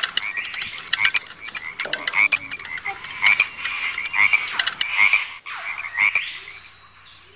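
Frogs croaking: a fast series of short croaks and sharp clicks that thins out and fades about six seconds in.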